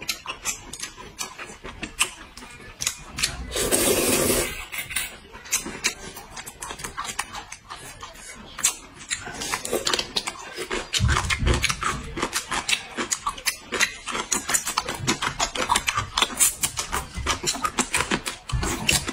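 Close-up eating sounds: hot-and-sour noodles being slurped, with one long slurp about four seconds in, over steady chewing and lip-smacking clicks.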